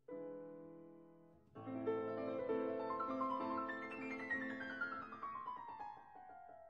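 Background piano music: a chord struck and left to fade, then from about a second and a half in a flowing passage of many notes with a run stepping down in pitch.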